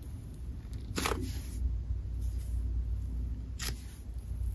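Hands squeezing and pressing a soft DIY clay bear down into thick slime: a soft squish about a second in and a short sharper one just before the end.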